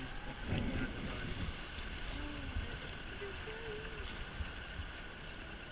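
Small tour boat under way: a steady low rumble from its motor mixed with wind and water noise against the hull.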